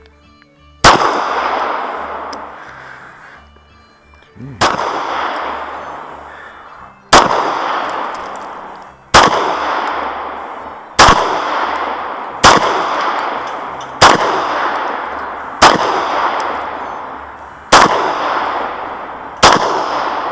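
Ten single pistol shots from a CZ 75 SP-01, fired slowly about one and a half to two and a half seconds apart. Each shot is followed by a long echo that fades away before the next.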